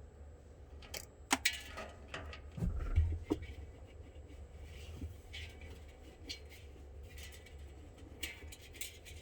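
A scatter of light clicks, clinks and knocks from handling small tools and hardware, busiest from about one to three and a half seconds in and again near the end, over a steady low hum.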